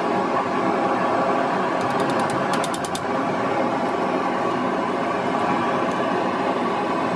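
A machine running steadily, with a short run of quick light clicks about two to three seconds in.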